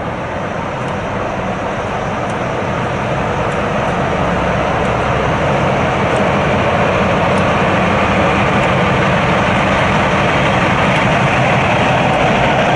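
Diesel locomotive running under power, getting steadily louder as it approaches.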